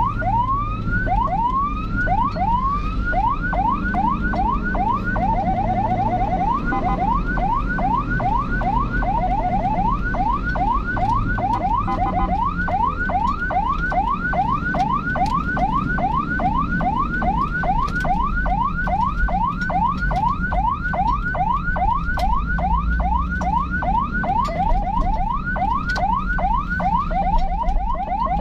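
Electronic emergency siren on a fast yelp, rising whoops repeating about three times a second with a brief quicker warble a few seconds in, over steady engine and road noise.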